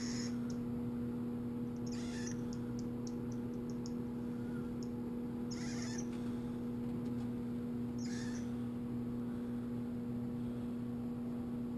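Pet monkey giving short high-pitched chirps and squeaks: one at the start, one about 2 s in, a quick run of tiny ticks just after, and two more calls near 6 and 8 seconds. A steady electrical hum runs underneath.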